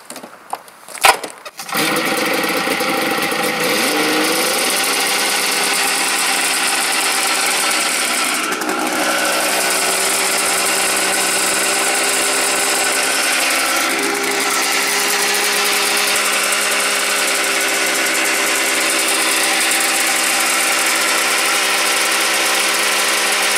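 Polaris 600 XLT three-cylinder two-stroke snowmobile engine starting about two seconds in, after a few sharp knocks, its pitch rising briefly and then settling into a steady run. It runs with the drive belt off the clutches, so it turns without load, held running to heat it toward 260°F in an overheat test.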